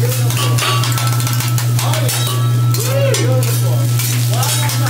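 Metal spatula clicking and scraping on a steel teppanyaki griddle as fried rice is chopped and turned, over a steady low hum.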